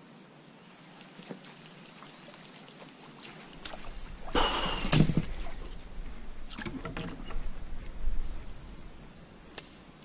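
Water sloshing and splashing around a kayak in two bouts, a strong one about four seconds in and a smaller one around seven seconds, over a low rumble.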